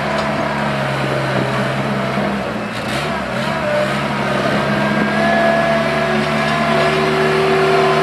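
Gehl 4510 skid steer's Ford 2274E four-cylinder gas engine running steadily. It dips briefly about two and a half seconds in and gets slightly louder after about five seconds.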